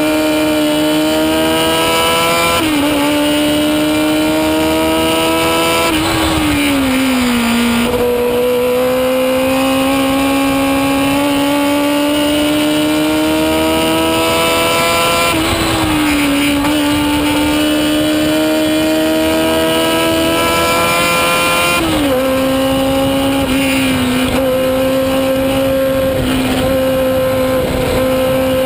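A 1970 Chevron B17's 1000cc Formula 3 "screamer" engine, heard from the cockpit at racing speed. The revs climb steadily through each gear, dip sharply at the gear changes about two and a half, fifteen and twenty-two seconds in, and fall away for a couple of seconds about six seconds in as the car slows.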